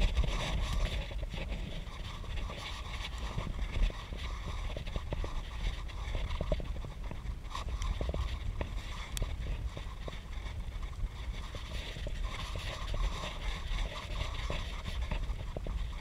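Wind buffeting a handlebar-mounted camera's microphone on a moving bicycle, a steady low rumble with road noise and scattered small clicks and rattles from the bike, sped up by half.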